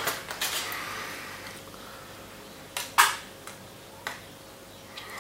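Knife and fork cutting meat on the bone in an aluminium foil tray: a few sharp clicks and scrapes of metal on foil, the loudest about three seconds in.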